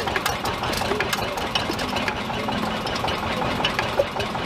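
Single-cylinder hit-and-miss stationary engine running, with a steady clatter of short, irregular clicks.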